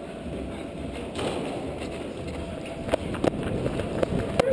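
Steady background noise on an indoor paintball field, with a few separate sharp cracks in the last second and a half.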